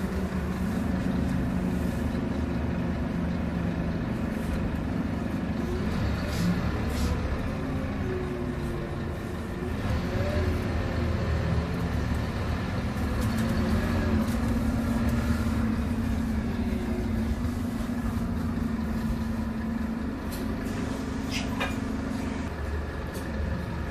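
Scania K230UB single-deck bus's diesel engine and ZF automatic gearbox, heard from inside the passenger saloon while the bus drives, the engine note stepping and gliding as it changes speed, over steady road rumble. A few sharp rattles from the cabin break in now and then.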